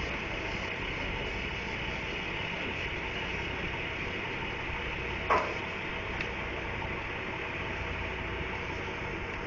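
Steady street traffic noise, vehicle engines idling and running, with one brief sharp sound about five seconds in.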